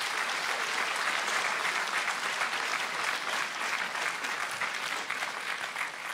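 Large outdoor audience applauding steadily, thinning a little near the end.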